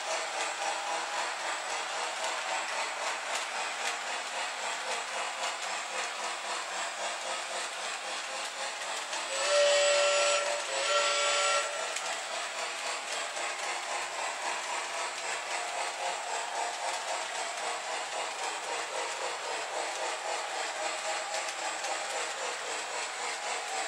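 O gauge LionChief Plus Mikado steam locomotive and freight train running on three-rail track with a steady rolling sound. About nine seconds in, the locomotive's onboard sound system blows a steam whistle in two blasts, the first a little longer than the second.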